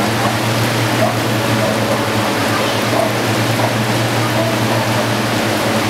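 Water running through a concrete drainage channel, a steady rushing noise over a constant low engine hum.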